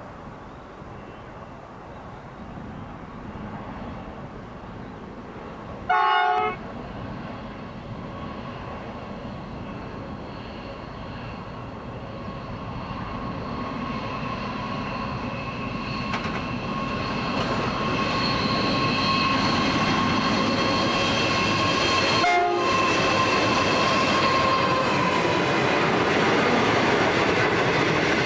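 A heavy freight train hauled by Pacific National NR-class diesel-electric locomotives approaches and passes. Its engine and wheel-on-rail noise grows steadily louder, with a short, loud horn blast about six seconds in and a brief fainter one later. Near the end, loaded steel wagons roll past close by.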